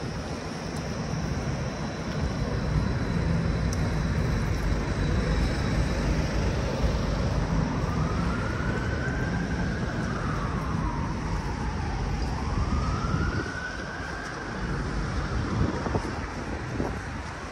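Steady rumble of city street traffic, with an emergency vehicle's siren wailing in the second half, sliding slowly up, down and up again before it fades.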